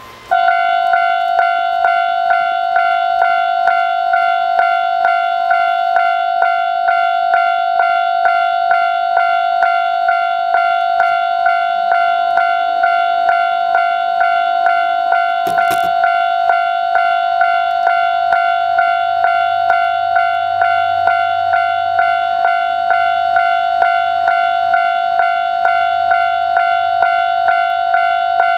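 Japanese railway level-crossing electronic warning bell starting abruptly and ringing steadily at about two strokes a second, warning that a train is approaching. A sharp click sounds about halfway through, and a low rumble joins in the second half.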